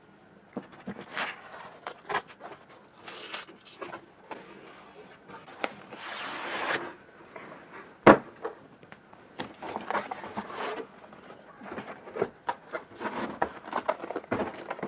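A cardboard shipping box being cut open and unpacked: scratchy rustling, scraping and small knocks of cardboard and packing tape, with a drawn-out tearing scrape about six seconds in and a sharp knock just after eight seconds as boxes are lifted out.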